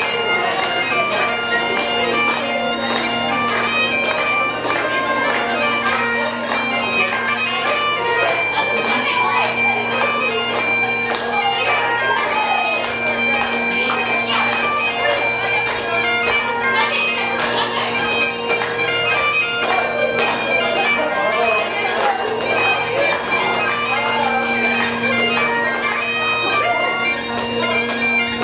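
Bagpipes playing a reel: steady drones under a lively chanter melody.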